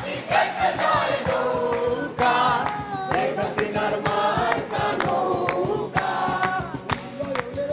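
A group of young men and women singing a Bengali song together in chorus, clapping along to an acoustic guitar.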